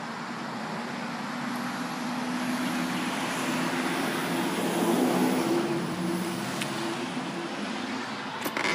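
A motor vehicle passing by: engine hum and road noise swell to a peak about halfway through, then fade. A few sharp clicks follow near the end from the door's latch.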